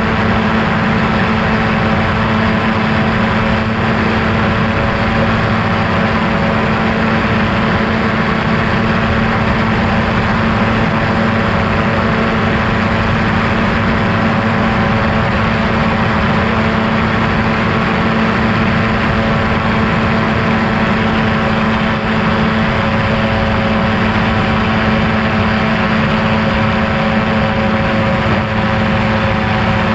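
Quicksilver MXL-2 light sport airplane's engine and propeller running steadily in flight, an unchanging drone.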